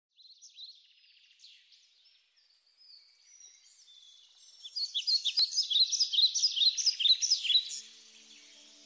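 Small songbirds singing: faint scattered chirps at first, then from about halfway a loud run of rapid, high chirps and trills that stops shortly before the end. Low, held music tones come in at the very end.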